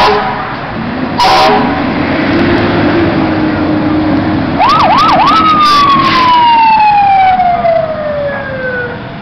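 2010 Pierce Arrow XT fire engine responding: two short horn blasts, then its siren gives three quick up-and-down yelps about five seconds in and glides down in one long falling wail as the truck passes.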